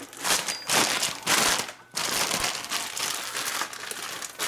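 Clear plastic packaging bag crinkling and rustling in irregular bursts as it is handled and opened to get a new wheel hub bearing assembly out.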